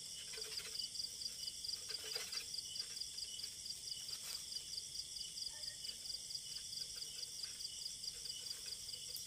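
Night chorus of insects trilling steadily, with a high pulsing trill of about five beats a second over it, and a few faint rustles.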